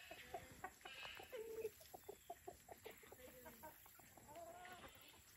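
Backyard chickens clucking quietly while they feed, with scattered short clicks and a longer arching call about four and a half seconds in.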